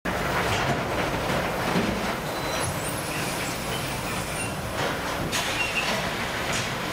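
Automatic bag-palletizing machinery running: a steady mechanical rumble and clatter with a few light knocks.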